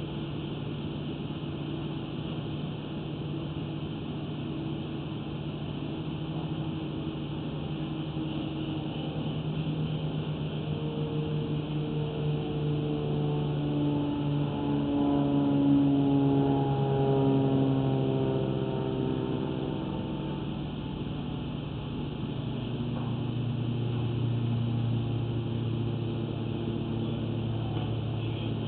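An engine running steadily. It climbs in pitch and loudness through the middle, is loudest about halfway through, then settles back to a lower, steady pitch.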